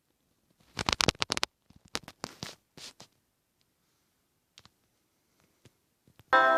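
A quick run of sharp clicks and knocks in the first three seconds, with a few faint ticks after. Instrumental music starts near the end.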